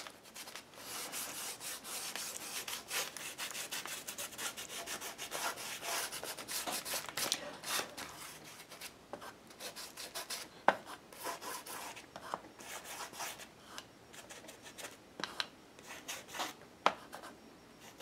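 Ink blending tool scrubbing Broken China Distress Oxide ink onto paper pages. Quick, dense scratchy rubbing strokes for about the first half, growing sparser later, with a few sharp clicks along the way.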